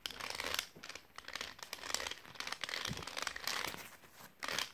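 Close rustling and scratching handling noise as Barbie dolls are moved about right at the phone's microphone, their hair and plastic brushing against it in irregular crinkly scrapes.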